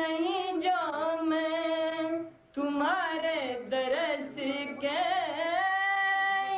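A single high voice singing a slow devotional song in long held notes with gliding ornaments, pausing briefly about two and a half seconds in.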